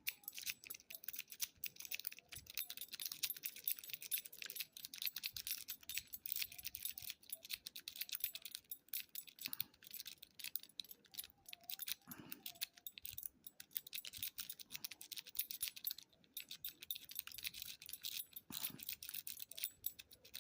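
Steel lock-pick rake scrubbed rapidly in and out of a Master Lock padlock's keyway: fast, irregular metallic clicking and scraping as it bounces the pins, without the lock opening.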